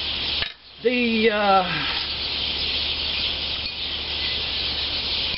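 A man's drawn-out wordless vocal sound, about a second long and falling in pitch, about a second in. After it, a steady outdoor background hiss.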